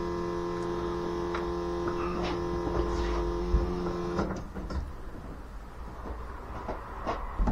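Car's electric fuel pump humming steadily with the ignition on, then cutting off abruptly about four seconds in.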